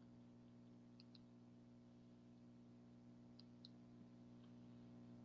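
Near silence: a steady low electrical hum, with a few faint clicks in pairs, about a second in and again about three and a half seconds in.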